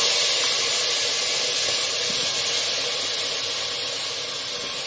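Steady sizzling hiss as washed, wet raw jackfruit pieces sit in a hot pressure cooker on the stove, slowly fading.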